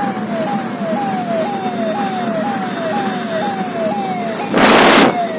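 A siren-type horn sounding a repeated falling wail, about two wails a second, over the road and engine noise of a car moving at speed. About four and a half seconds in, a short loud rush of noise cuts across it.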